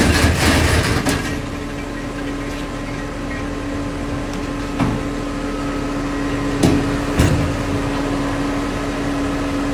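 Truck-mounted crane's engine running with a steady hydraulic hum while it lifts a wrecked truck, with a loud rattle in the first second and a few sharp knocks later on.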